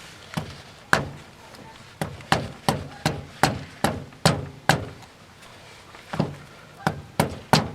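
Repeated hammer blows on stiffened rubber that is being forced into place on a lawn tractor wheel. There are a couple of strikes, then a quick run of about ten at roughly three a second, a pause, and four more near the end.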